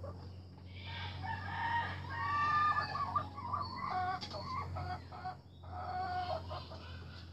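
Rooster crowing: a drawn-out call lasting a few seconds, then a shorter call near the end, over a steady low hum.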